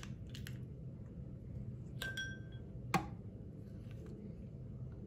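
Small glass bowl being handled and scraped with a spatula. A few light clicks come first, then a ringing glass clink about two seconds in and a sharper knock about a second after that.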